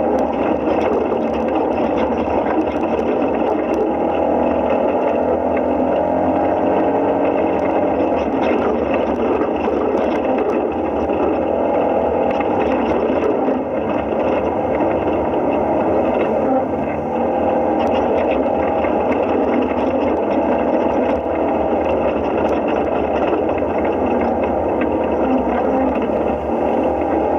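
Side-by-side UTV engine running as it drives a rough dirt trail, heard from inside the open cab. Its pitch drifts up and down with the throttle, and small rattles and knocks come over the bumps.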